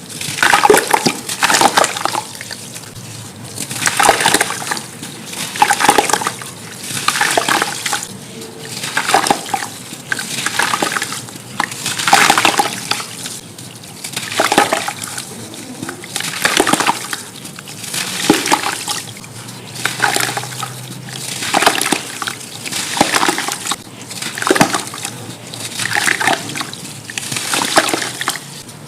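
Clumps of pure sand crumbling and splashing into water, a burst about every two seconds.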